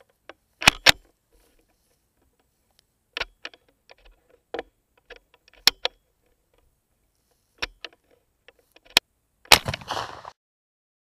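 A single shot from an 11 mm black-powder Chassepot needle rifle about nine and a half seconds in, its report trailing off over most of a second. Before it come scattered sharp clicks and knocks as the rifle is handled and aimed.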